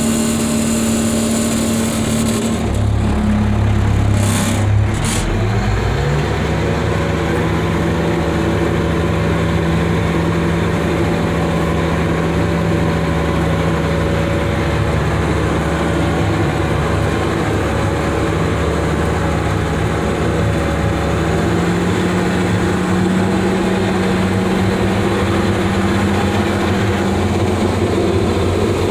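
The 8.3-litre Cummins inline-six diesel of a Badger 670 excavator's carrier truck, running while the truck is driven down the road. The engine note changes and dips a few seconds in, then holds a steady drone and rises slightly past the middle.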